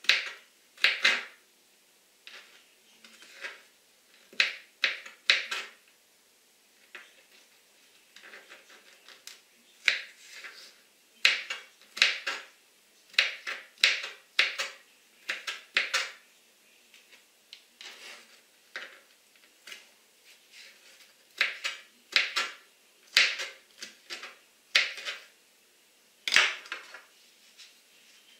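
Small kitchen knife chopping radish on a plastic cutting board: irregular sharp taps of the blade on the board, often in quick pairs or threes.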